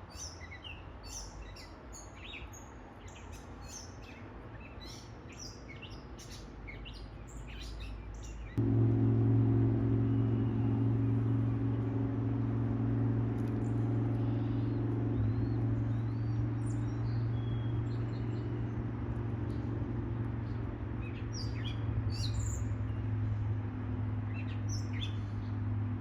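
Birds chirping in short, high calls. About eight seconds in, a steady low mechanical hum sets in abruptly, becomes the loudest sound, and runs on under occasional further chirps.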